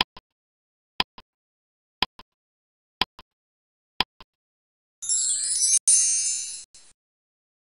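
Countdown-timer sound effect: a clock ticking once a second, each tick followed by a softer tock, five times. About five seconds in, a bright, high jingling chime sounds for about two seconds as the time-out alert.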